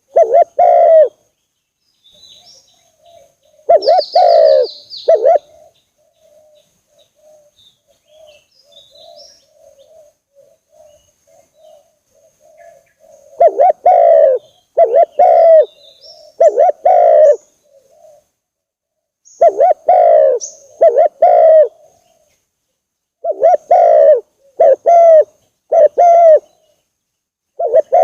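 Wild spotted dove (tekukur) cooing in repeated phrases of three or four low, hoarse coos, with pauses of a few seconds between phrases. A fainter dove keeps cooing in the gaps, and another bird gives a brief high chirp about four seconds in.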